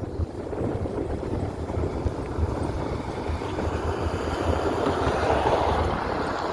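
Wind buffeting the microphone over the wash of sea waves, with a swell of surf rising about five seconds in.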